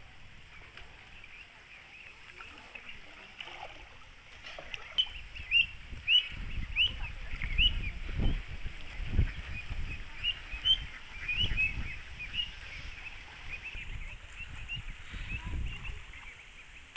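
Small birds chirping over and over in short rising-and-falling calls. Beneath them, irregular low sloshing of water as someone wades through shallow floodwater.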